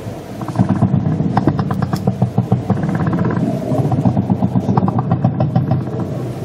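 An engine running with a rough, pulsing rumble that starts about half a second in, with rapid rattling ticks over it.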